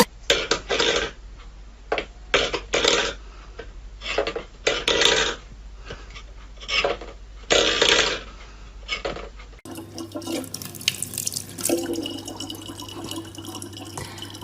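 Water splashing in a string of short, irregular bursts, then, about ten seconds in, a change to water running more steadily over a low hum.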